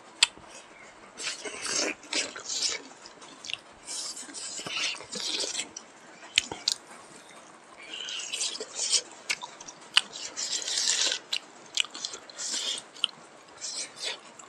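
Two people chewing and biting smoked pork and rice, eaten by hand, in irregular bursts with a few sharp clicks.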